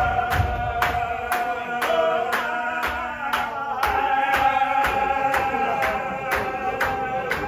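Qadiri Sufi zikr: a crowd of men chanting together in long held notes, over steady rhythmic hand claps at about two a second.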